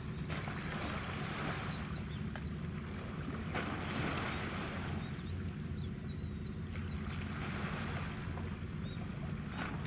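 Steady low rumble of a passing naval oil tanker's engines. Water washes in and out every few seconds, small birds chirp repeatedly, and there are two sharp clicks, about three and a half seconds in and near the end.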